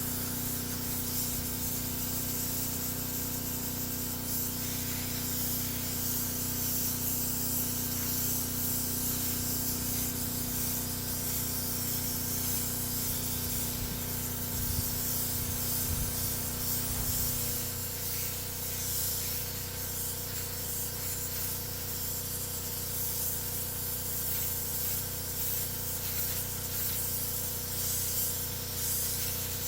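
Paint spray gun hissing steadily as automotive paint is sprayed onto a bumper, with a steady low machine hum underneath that changes about 17 seconds in.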